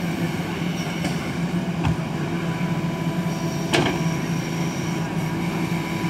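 JCB 3DX backhoe loader's diesel engine running steadily while the backhoe arm digs soil. Two sharp knocks stand out, a small one about two seconds in and a louder one about four seconds in.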